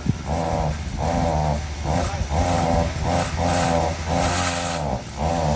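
Two-stroke 42.7cc engine of a pole saw running, its throttle blipped in short revs a little under twice a second over a steady idle.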